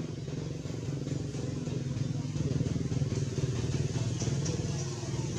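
A motor engine running steadily nearby, a low hum that swells a little through the middle.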